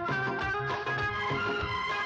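Background music in the style of Indian film music, with held melodic tones over a steady beat.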